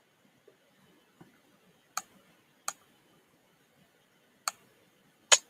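Computer mouse clicking: four sharp, separate clicks about a second apart, from right-clicking a link and choosing from the menu.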